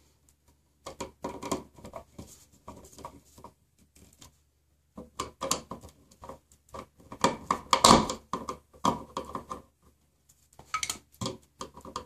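Screwdriver turning a wall outlet's mounting screws into the electrical box: runs of small scraping clicks with short pauses, the loudest scrape about eight seconds in.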